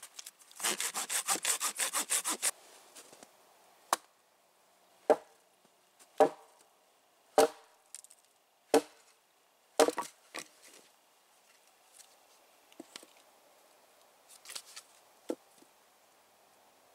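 A hand saw cutting wood in a quick run of strokes, about seven a second, for roughly two seconds. Then a hatchet knocks into a log in single blows, about one a second, each a sharp crack.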